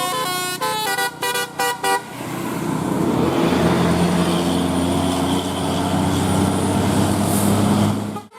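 A bus's multi-tone 'telolet' musical air horn plays a stepped melody of short notes, ending in a few quick blasts about two seconds in. Then the bus's engine runs loud with a rushing noise, its hum climbing slightly in pitch as it pulls away.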